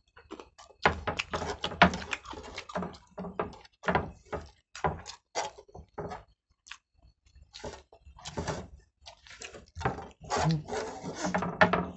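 Close-miked eating by hand: chewing and mouth noises, with fingers scraping rice off trays, in short irregular clicks and scrapes.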